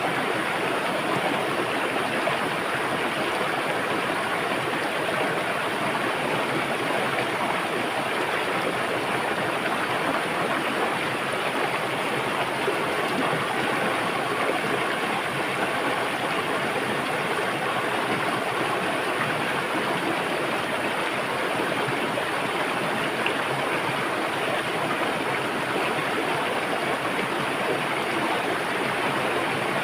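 A river's water rushing and splashing, a steady, even rush with no breaks.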